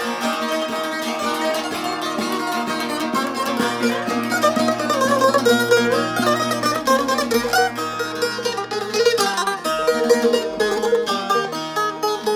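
Two long-necked folk lutes played together, plucked rapidly through a folk melody, with a low drone note that drops out about nine seconds in.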